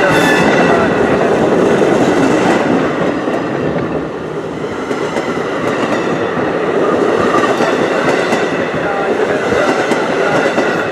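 NJ Transit Multilevel bilevel commuter coaches rolling past close by: a loud, steady rumble of steel wheels on the rails.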